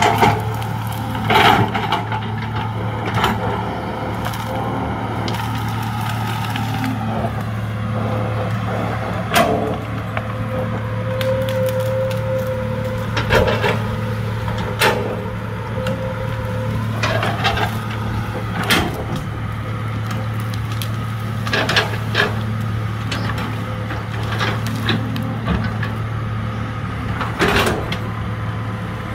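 Hydraulic excavator's diesel engine running steadily, with about a dozen sharp cracks of wood snapping and splintering at irregular intervals as the machine breaks through trees or roots.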